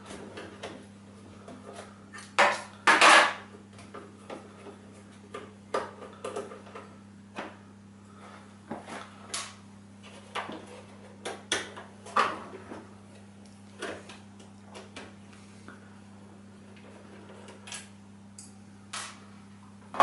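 Scattered clicks, taps and light clatter of a screwdriver and hard plastic parts being handled while the small Phillips screws on an all-in-one PC's stand are undone, with a louder knock about three seconds in. A faint steady low hum runs underneath.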